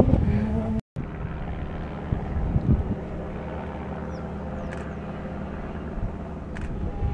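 A rally car's engine at high revs as it pulls away, cut off abruptly under a second in. Then a distant rally car's engine as a steady low drone while the car approaches along the stage.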